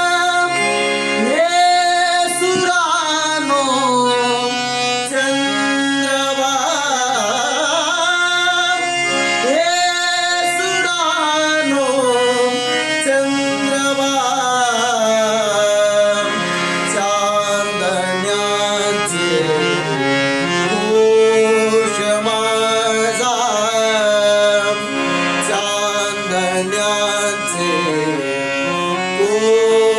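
A man singing a traditional devotional song, his voice gliding and bending through long ornamented phrases over a steady instrumental accompaniment.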